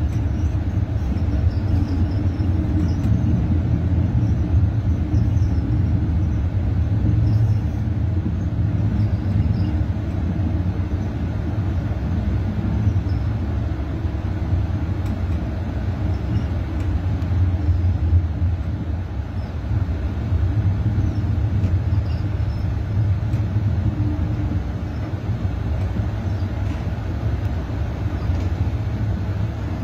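Steady low rumble of a moving passenger train, heard from inside the coach as its wheels run along the rails.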